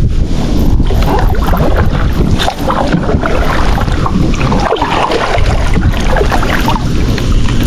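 Wind buffeting the microphone with a heavy low rumble, over water lapping and splashing against a kayak.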